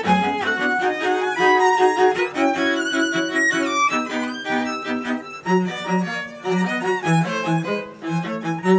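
String quartet playing live, bowed violins and cello in many overlapping lines. About three and a half seconds in, an upper line slides upward, and through the second half short repeated low notes pulse underneath.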